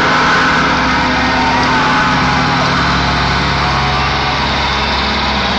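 Loud live dance music from a band on stage, heard distorted through a phone's microphone. It has held, heavy bass notes that change every few seconds under a dense wash of sound.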